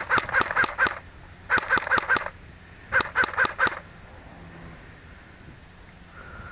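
A bird calling loudly in three bursts of harsh repeated notes, about five or six notes a second, each burst lasting under a second.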